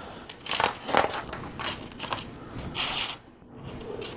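Plastic LEGO pieces being handled and fitted together: an irregular string of small clicks and rattles, loudest about a second in and again near three seconds.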